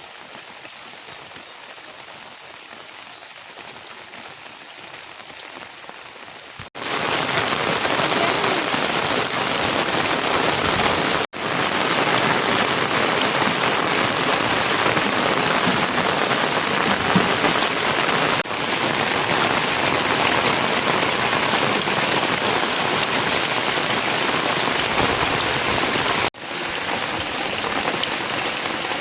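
Steady rain falling: lighter for the first few seconds, then much heavier and louder from about seven seconds in, with three very brief dropouts.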